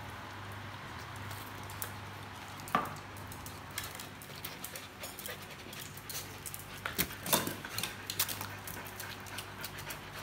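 Several dogs begging for treats: a few short dog yelps, one about three seconds in and a louder cluster about seven seconds in, over claws clicking on a tiled floor and a steady low hum.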